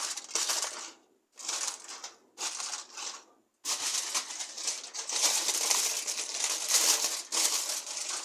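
Aluminum foil crinkling as it is pressed and crimped over a baking pan, in irregular rustling bursts with two short pauses.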